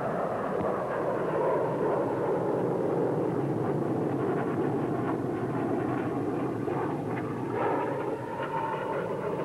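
Jet fighter engine running in flight: a steady rushing noise with a whine that drops slightly in pitch at first. A steadier whine comes in near the end.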